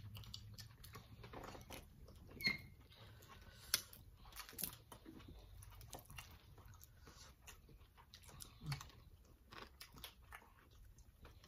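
Close-miked eating sounds: chewing and mouth smacks with scattered small clicks, as mussels are eaten from their shells.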